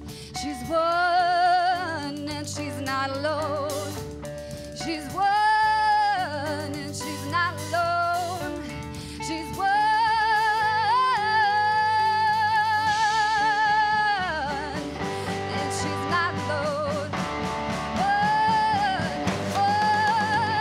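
Live rock band: a woman sings with a wavering vibrato, holding one long note through the middle, over electric guitar, bass guitar and drum kit.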